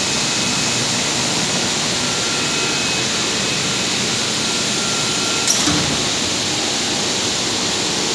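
Industrial heavy-component cleaning machine running, a loud, steady rushing noise, with one sharp click about five and a half seconds in.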